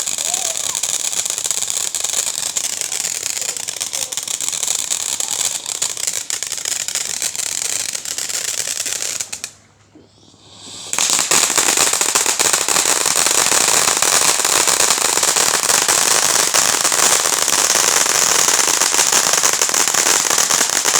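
Fireworks crackling densely and continuously, a rapid stream of small pops. The crackle nearly stops for a moment a little before halfway, then comes back louder and thicker.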